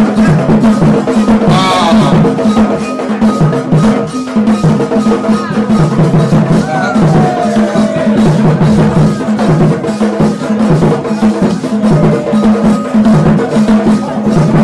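Loud drum-led dance music with percussion keeping a fast, steady beat, with a few voices calling out over it.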